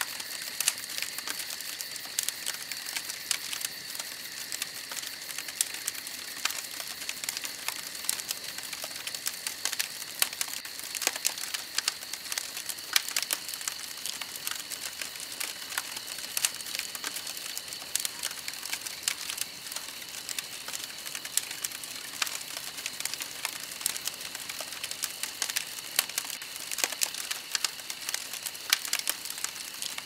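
Wood fire crackling, a constant scatter of sharp pops and snaps, over a steady high-pitched insect drone whose lower tone fades out about six seconds in.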